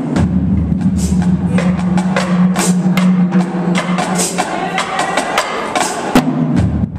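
Marching drumline playing: rapid, sharp snare and tenor drum strokes with bass drums, over a held low note that breaks off briefly near the end.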